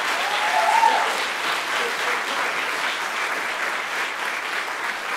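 Audience applauding steadily after a string ensemble performance ends, with a brief voice rising in pitch about half a second in.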